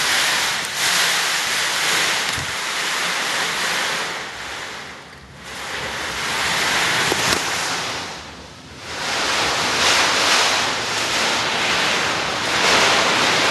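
Hurricane wind gusting: a loud, steady rushing that eases off twice in the middle, then builds back up each time.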